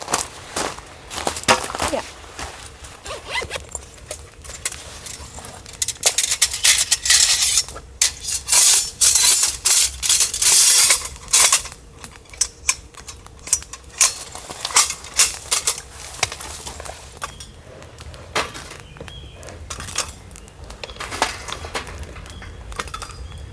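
Close-up handling noises: a quick, irregular run of clicks, knocks and clinks, with a dense crackling, rustling stretch around the middle.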